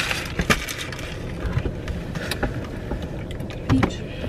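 Low steady rumble inside a car, broken by a few sharp clicks and crinkles of a sandwich's paper wrapper being handled while eating.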